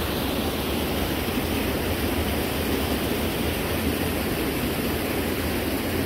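Steady rush of a waterfall's falling water, an even noise with no breaks.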